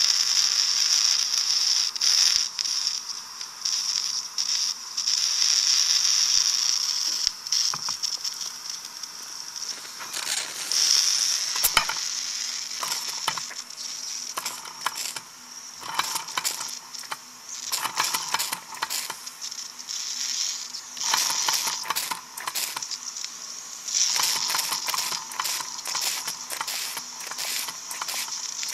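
Weeden No. 14 toy steam engine with an alcohol-fired boiler: a steady high hiss and sizzle of steam. From about ten seconds in, rapid irregular clicking and clattering of the little engine's moving parts joins it.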